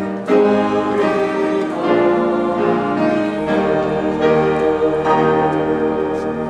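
Slow hymn music in the church, with held chords that change about once a second.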